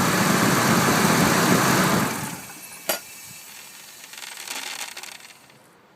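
2002 Ford F-150's 5.4-litre Triton V8 idling steadily, running quietly on a freshly replaced PCV valve. About two seconds in the engine sound drops away, followed by a single sharp click.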